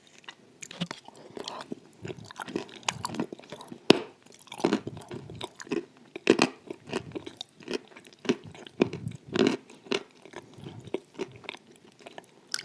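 Close-miked mouth sounds of eating a runny clay-and-water slurry off a spoon, wet and irregular, with a sharp click about four seconds in.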